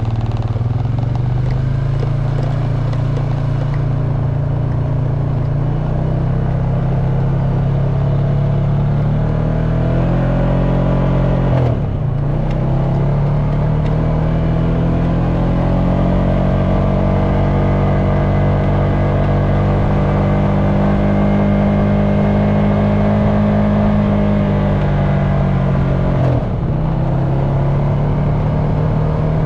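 Honda Foreman ATV's single-cylinder four-stroke engine running steadily under way on a dirt road, its note rising and falling gently with the throttle. The engine note dips sharply and recovers twice, about halfway through and near the end.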